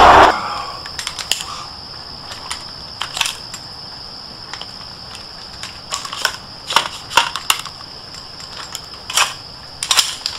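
Scattered sharp metallic clicks and light rattles of an M4-style carbine being handled, coming singly or a few in quick succession, over a faint steady high-pitched tone. Loud vehicle noise cuts off right at the start.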